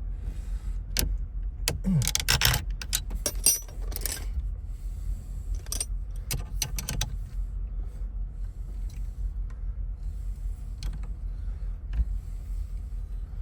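Small metal parts and hand tools clicking and rattling while a 1993 GMC Yukon's steering column is taken apart for an ignition replacement. A burst of quick clicks and jingling comes in the first few seconds and a few more follow, then only a few scattered ticks over a steady low rumble.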